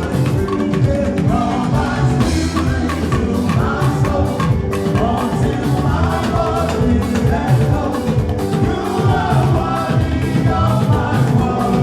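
Live band music with a steady drum beat and singing.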